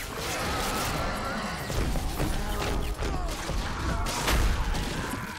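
Battle sound effects from an animated film: a rapid gunfire fusillade and energy-blast effects mixed with music, with heavy low impacts about two seconds and four seconds in.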